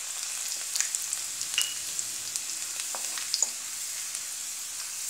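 Crushed garlic frying in hot mustard oil in a kadhai, a steady sizzle with scattered crackling pops, stirred with a spatula as the garlic browns in the tadka.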